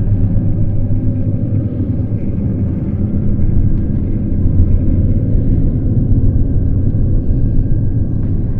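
A steady, loud low rumbling drone, with faint thin tones sounding above it.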